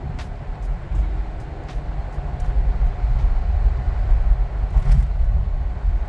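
Car driving at highway speed: a steady, heavy low rumble of road and wind noise heard from inside the car.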